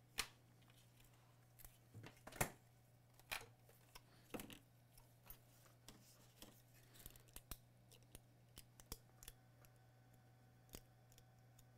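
Scattered faint plastic clicks and scrapes from a Mini Maxx tuner's housing being taken apart and its circuit board handled, over a steady low hum.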